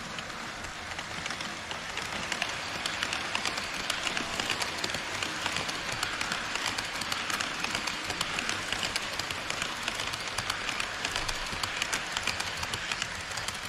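HO scale model trains running on KATO Unitrack: an E5 series Shinkansen model passing close by, its wheels on the rails making a steady rushing rattle with rapid fine clicks. It swells about two seconds in and stays up until near the end.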